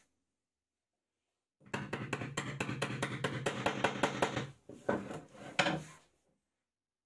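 Steel hammer rapidly tapping a deep socket to drive a 6201 ball bearing into the hub of a wooden belt-grinder wheel, about six light metallic taps a second, then a few heavier separate blows near the end to seat the bearing.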